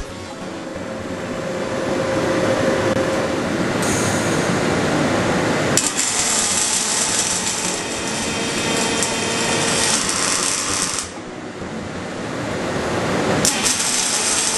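Pulsed MIG welding arc of an OTC Daihen DP400 pulse power source on a robot-held torch, welding stainless steel: a steady buzzing hiss. It grows louder about six seconds in, dies down about eleven seconds in, and strikes up again sharply a couple of seconds later.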